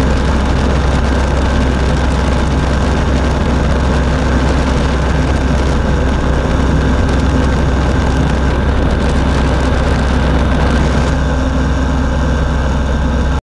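Hirth 3202 two-stroke engine of a HyTek Hurricane ultralight running steadily in flight, with air rushing past the open cockpit.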